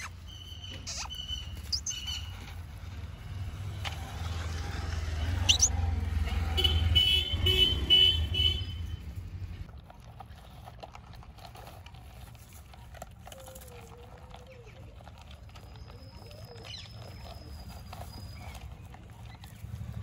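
Puppies eating dry kibble from plastic bowls: faint small crunches and ticks, with birds chirping. A low rumble is loudest through the first half.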